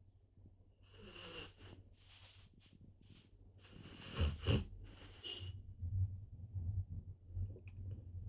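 A dog snoring and wheezing in its sleep: a series of noisy breaths, the loudest two coming close together about four seconds in, over a steady low hum.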